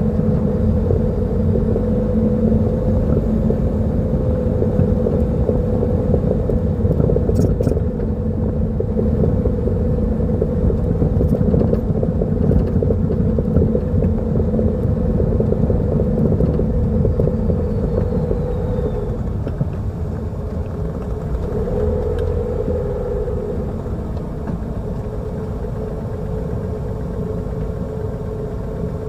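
Steady rumble of a running Lada Vesta NG, with a constant low hum and a few faint clicks about 7 and 12 seconds in.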